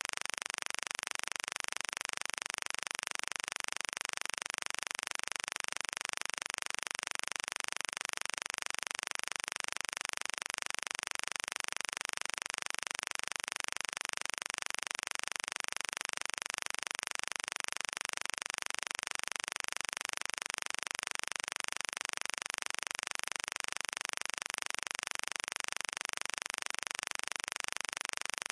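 Steady, even hiss that never changes, with no other sound: noise on the audio track.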